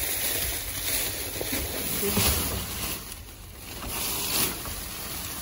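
Plastic trash bags rustling and crinkling as they are pushed and handled, with louder swells about two and four seconds in.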